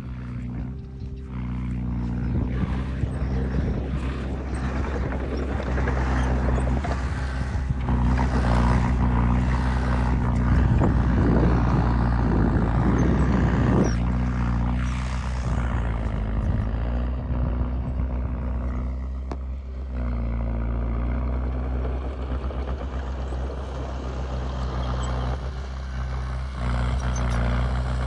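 Heavy diesel earthmoving machinery running steadily, with a louder stretch of rattling and clanking about ten to fourteen seconds in.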